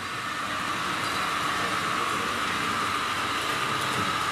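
H0-scale model train running on the layout's track: a steady mechanical whir with a high steady hum, growing louder over the first second and then holding.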